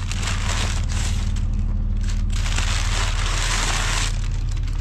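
Crinkly brown kraft packing paper being pulled out of a cardboard box and crumpled, in several crackling rustles, the longest in the second half. A steady low hum runs underneath.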